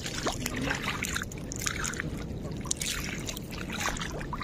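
Shallow sea water splashing and sloshing irregularly as someone wades through it, over a steady low background noise.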